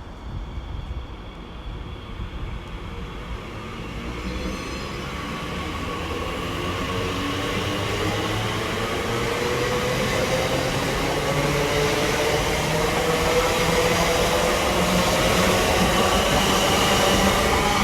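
TfL Rail Class 345 electric multiple unit running through the station and growing steadily louder, with a whine that slowly rises in pitch.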